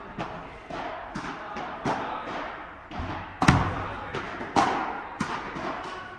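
Padel rally: the ball struck by rackets and bouncing on the court, a string of sharp knocks every half second or so, each with a short echo, the loudest hit about three and a half seconds in.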